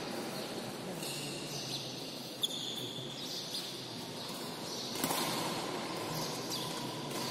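Steady room noise of a large indoor badminton hall, with a few short high-pitched squeaks in the first few seconds and a single sharp tap about two and a half seconds in.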